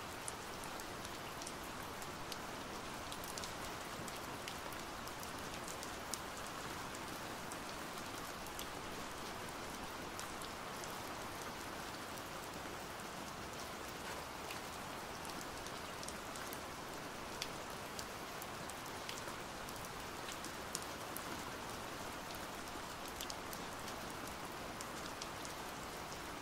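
Pouring rain: a steady, even hiss of rainfall with scattered sharp drop ticks.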